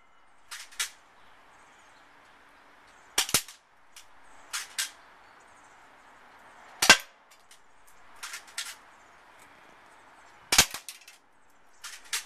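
Spring-powered HK USP .45 airsoft pistol firing: three sharp cracks about three and a half seconds apart, with quieter clicks and taps between them from cocking the pistol and BBs striking the target.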